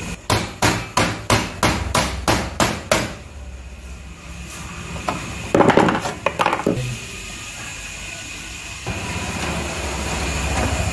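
Thin sheet-metal side plate of a gas geyser's combustion chamber being knocked into place. About nine sharp metallic knocks come at roughly three a second, and a few more come around six seconds in.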